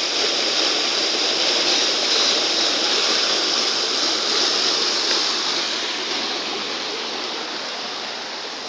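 Waterfall splashing with a steady, full rush of water, easing slightly near the end.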